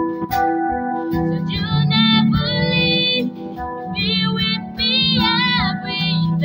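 A woman singing a slow song solo over a steady instrumental accompaniment, in two phrases with a short break between them, her held notes wavering with vibrato.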